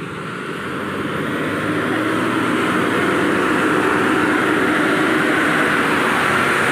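Diesel engine of a loaded Ashok Leyland truck pulling hard up a steep hill road, growing louder over the first few seconds as it comes close and then running steadily loud.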